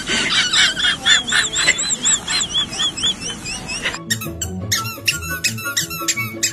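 A rapid run of high-pitched squeaky chirps, about three a second, each rising and falling in pitch. At about four seconds it cuts off and background music with a steady beat takes over.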